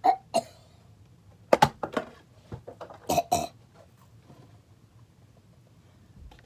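A few short throaty vocal bursts from a person, not words, in clusters over the first three and a half seconds.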